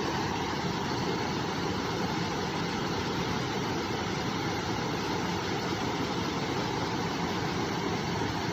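River water flowing, a steady, even rush of running water.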